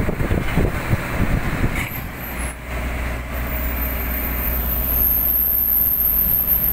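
Inside a moving road vehicle: engine and tyre noise on a wet concrete road, a steady low rumble with a few knocks and rattles in the first couple of seconds. A thin, very high steady whine joins about three seconds in.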